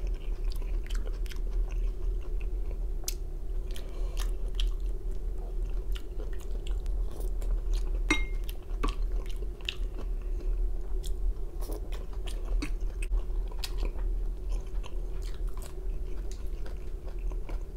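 A man chewing mouthfuls of food close to the microphone, with many short wet clicks and crunches from the mouth. A steady low hum runs underneath.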